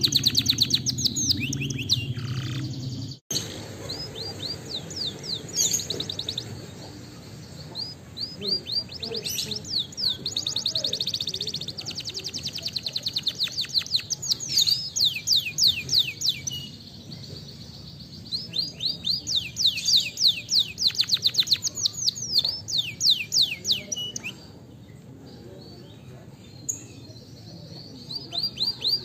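Domestic canary singing: rolling trills of rapid, repeated high sweeping notes in phrases a few seconds long, with short pauses between them. The sound drops out briefly about three seconds in.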